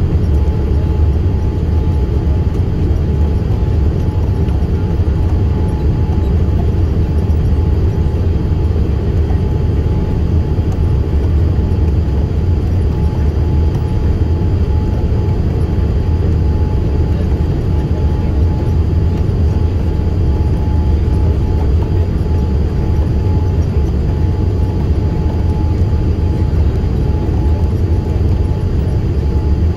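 Boeing 787 passenger cabin noise on descent for landing: a loud, steady low rumble of engines and airflow, with a faint steady whine above it.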